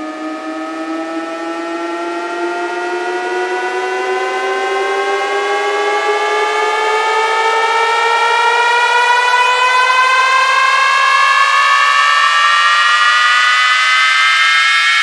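Electronic riser sound effect in a DJ sound-check track: several layered tones slowly climbing in pitch together, getting steadily louder as a build-up.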